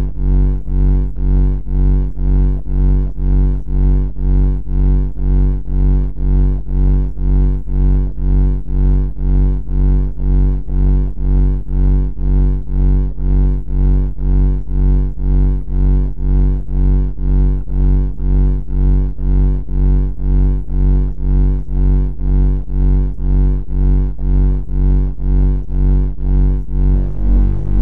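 A loud, low, buzzy droning tone pulsing evenly about twice a second.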